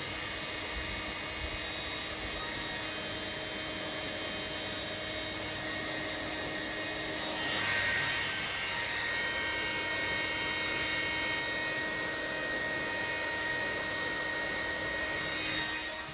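Hair dryer running: a steady rush of air with a whining motor hum, growing louder and brighter about halfway through.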